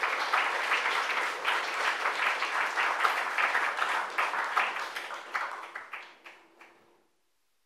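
Audience applauding, many hands clapping together, which thins out and stops near the end.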